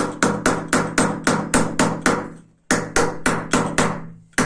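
Light, rapid hammer taps, about four a second, driving a new ball bearing into a ceiling fan's housing; each strike rings briefly, and the tapping pauses for a moment about halfway through, then goes on.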